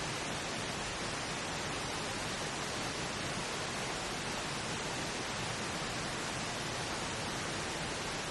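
Steady pink noise: an even, unchanging hiss with no breaks.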